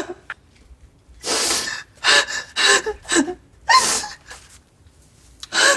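A person crying in a string of gasping, sobbing breaths, about six of them, the first one the longest.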